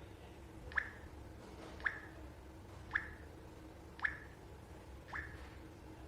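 Smart door lock giving short electronic beeps at an even pace, about one a second, while it scans and registers a face.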